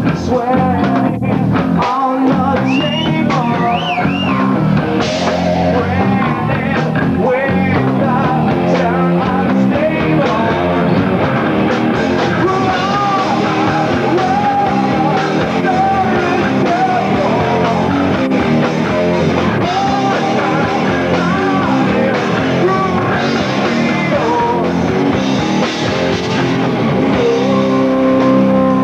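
A rock band playing live, loud and without a break: electric guitars over a drum kit.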